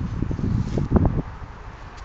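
Wind buffeting the phone's microphone in irregular low rumbling gusts, easing off a little past the middle.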